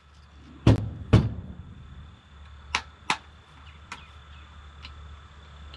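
Two firm taps on the jammed KS-12 shotgun's magazine, about half a second apart, followed by a few lighter clicks of handling. The magazine has a stoppage inside it, and the tapping does not clear it.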